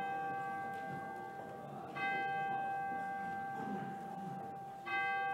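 A bell struck on the same clear note every two and a half to three seconds: a stroke just before, one about two seconds in and one near the end, each ringing on and fading slowly. The strokes mark the start of the worship service.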